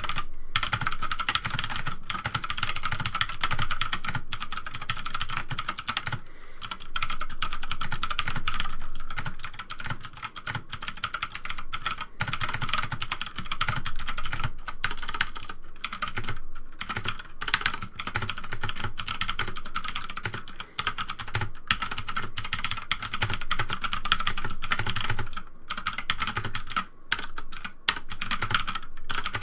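Fast, continuous typing on a mechanical keyboard fitted with clicky Gateron green switches, a dense stream of loud key clicks with only a few brief pauses.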